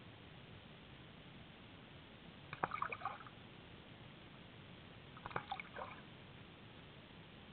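Two short bursts of water sounds, each a cluster of clicks and brief pitched blips, about three seconds apart, over a steady faint hiss.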